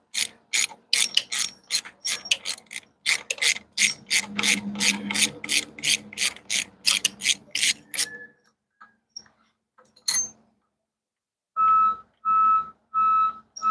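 Hand ratchet wrench clicking rapidly, about four clicks a second, as a bolt is backed out of a DT12 transmission's shift mechanism; the clicking stops about eight seconds in. Near the end a vehicle's reversing alarm starts beeping steadily, about one beep every 0.7 seconds.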